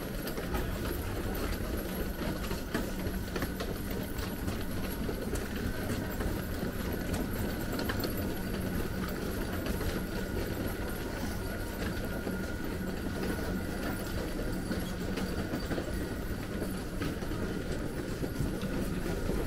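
Wheeled suitcases and a luggage trolley rolling over a tiled floor, a continuous rumble with the wheels clacking over the tile joints, mixed with footsteps. A faint steady hum runs underneath.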